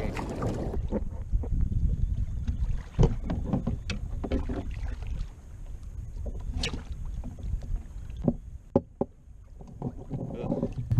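Wind buffeting the microphone over water sloshing against a kayak hull, broken by several sharp knocks and splashes as a little tunny is gaffed alongside, the loudest about three seconds in and again late on.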